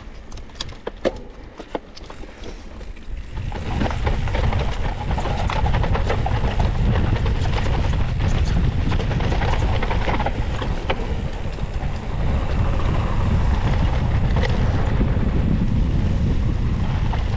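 Mountain bike ridden over rough ground, with rattling clicks and knocks from the bike. About three and a half seconds in, wind rushing across the microphone comes up loudly and stays, buffeting and low, over the rolling tyre noise.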